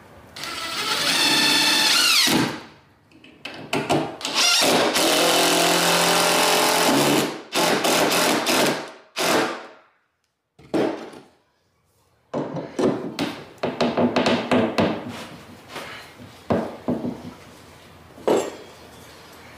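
Cordless drill driving long screws into pressure-treated framing lumber in several long runs, its motor whine dropping in pitch as it slows at the end of a run. This is followed by a string of sharp knocks of a hammer on the wood.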